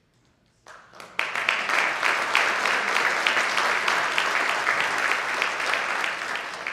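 An audience applauding: a few scattered claps, then full applause with many people clapping at once, which eases a little near the end.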